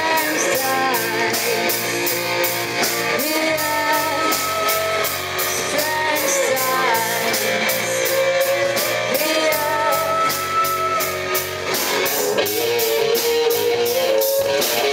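Live rock band playing: a woman singing over electric guitar, bass guitar and drum kit, with the cymbals keeping a steady beat.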